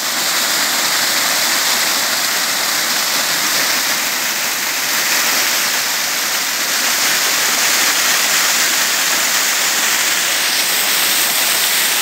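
Small waterfall: water pouring steadily over rocks and splashing down in an even rush.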